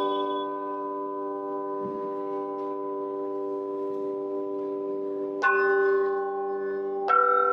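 A row of hanging metal bells struck with a soft mallet, ringing in several overlapping pitches that hold and slowly fade. Two fresh strikes come about two-thirds of the way through and again near the end, each a bright attack that rings on.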